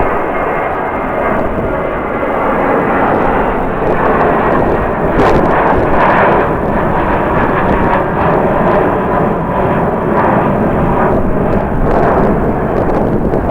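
Jet airliner engines running loud and steady with a faint whine, mixed with strong wind buffeting the microphone.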